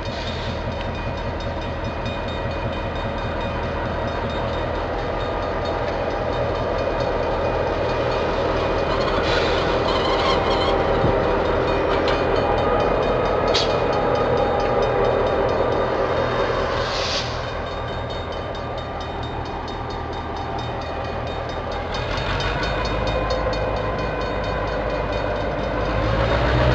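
DBR-class diesel-electric locomotive running past at low speed, hauling a train of carriages. Its engine gives a steady low hum over the rumble of wheels on the rails.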